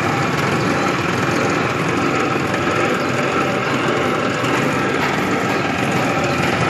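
Cotton candy machine running, its spinner head turning at speed with a steady, rough mechanical whir.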